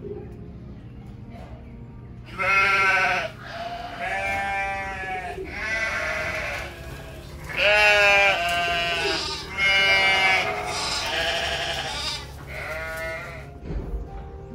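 Sheep bleating: a run of about eight wavering calls in turn, the loudest in the middle of the run.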